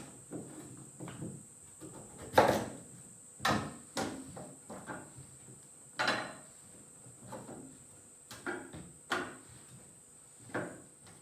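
Knife cutting potatoes on a cutting board: irregular knocks of the blade hitting the board, roughly one a second, the loudest about two and a half seconds in.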